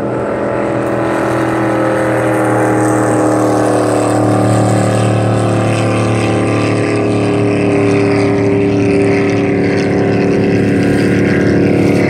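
Racing jet boat passing at speed, its engine a loud, steady drone that sags slightly in pitch in the second half as the boat runs away upriver.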